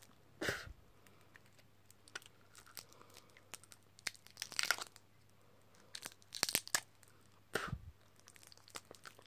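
Crinkly plastic wrapper of a large sour lollipop crackling and tearing in several short bursts, with faint clicks between.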